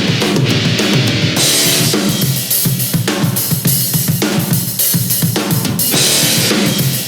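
Loud rock music with a driving drum beat, crashing cymbals and distorted guitar.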